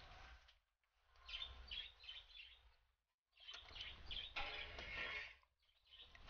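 Faint outdoor background with birds chirping, and water splashing in a clay basin as a fish is rinsed by hand. The sound comes in three stretches with short silent breaks between them.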